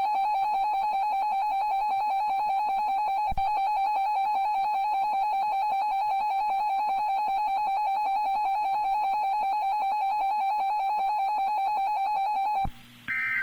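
Electronic emergency alert tone: a single high beep pulsing very rapidly and steadily for about 13 seconds, then cutting off abruptly. It is followed near the end by a short burst of data tones, the squawk of a weather-radio alert signal.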